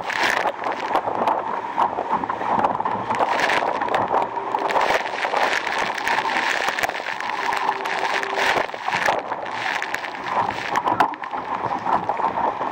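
Water rushing and splashing along the hull of an RS Aero sailing dinghy moving fast in a strong breeze. Many small crackling splashes and spray hits run through a steady rush.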